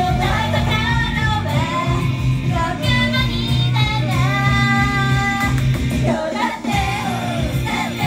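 Live Japanese idol pop: female voices singing a melody over a loud band-style backing with a steady bass beat, with some notes held about halfway through.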